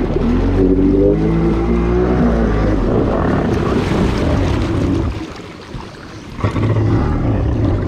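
Jet ski engine running at speed on the water, its pitch rising and falling with the throttle over the first few seconds. It dips briefly about five seconds in, then comes back up to full power.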